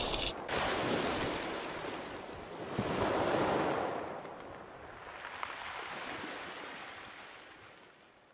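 Sea waves breaking and washing ashore in slow swells, about three surges, fading out toward the end.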